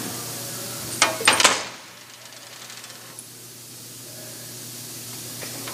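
Lid of a metal tool box swung shut, with a quick run of sharp metallic clacks about a second in, then a quiet hiss over a low steady hum.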